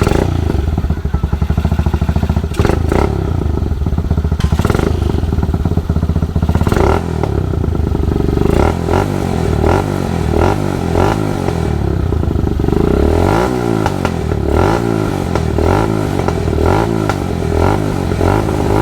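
Motorstar MSX 150SR motorcycle engine breathing through a Keihin 28mm flat slide racing carburetor, running just after start-up and revved repeatedly. Sharp throttle blips come first, then quicker rises and falls in revs in the second half.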